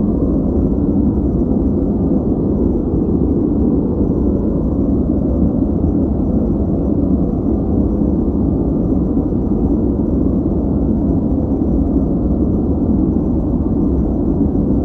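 Steady, unchanging synthetic noise of the kind played as white noise for focus. It sounds deep and muffled, with little above the low and middle range, closer to brown noise than to a bright hiss.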